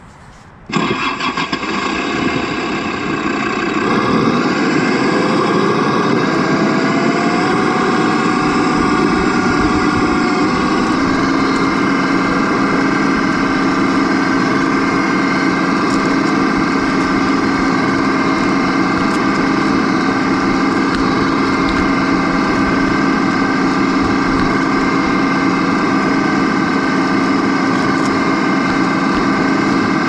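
Remote-control truck's engine-like running sound, starting abruptly about a second in, rising slowly in pitch for several seconds, then holding steady.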